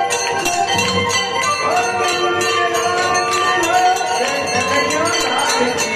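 Bells ringing in a quick, steady rhythm, about four strokes a second, over music with voices singing.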